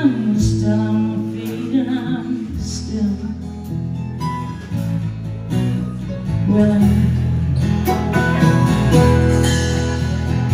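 Live band playing a slow country-rock song: strummed acoustic guitar over a bass line, with a woman singing.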